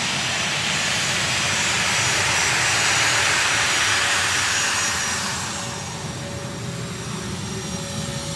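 Jet noise from an A-10 Thunderbolt II's twin turbofan engines just after it lands, swelling to its loudest about three seconds in, then fading to a steady whine.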